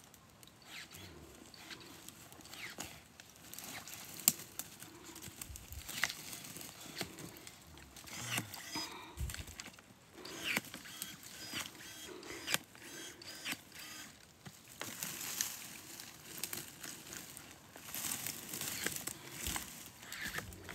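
Dry brush rustling and twigs cracking as a gloved hand grabs and pulls through them, with scattered sharp snaps, the loudest a little after four seconds in, and heavier rustling in the last few seconds.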